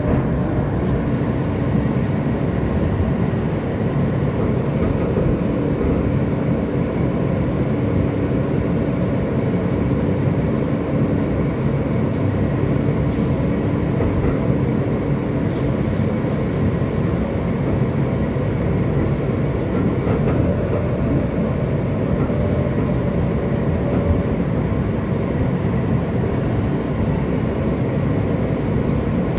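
New York City L train subway car heard from inside by the door: a steady, loud rumble and hum of the train. A steady tone within it stops about halfway through.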